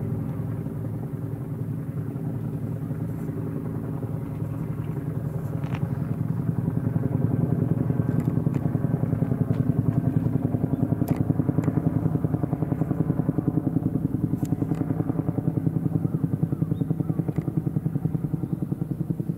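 Helicopter rotor beating with a fast, even pulse. It grows louder about six seconds in as the aircraft comes nearer, with a few faint clicks.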